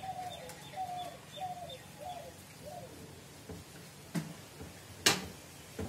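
A bird calling faintly, a short falling note repeated about every two-thirds of a second for about three seconds. Then two sharp clicks about four and five seconds in, the second louder.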